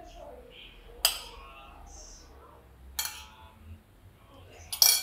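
Metal spoon clinking against a bowl three times, about two seconds apart, as corn kernels are scooped and spooned out; the last clink rings briefly.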